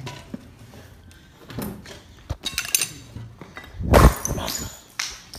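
Scattered clicks and knocks, with one loud, heavy thump about four seconds in.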